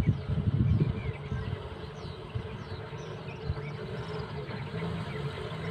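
Bus's diesel engine running steadily as the bus climbs a hill road toward the listener, with a heavier rumble in the first second. Birds chirp over it in short, high, falling notes.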